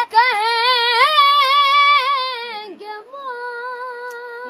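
A boy singing an Urdu devotional lament (noha) for Husayn unaccompanied. His high voice wavers with heavy vibrato on long held notes, breaks off briefly about two and a half seconds in, then goes on more softly.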